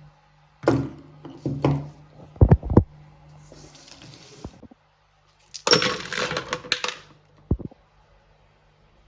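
Small parts being handled during a minibike carburetor repair: several knocks and clinks, a short hiss near the middle, then a rattling, hissing burst of about a second and a final knock.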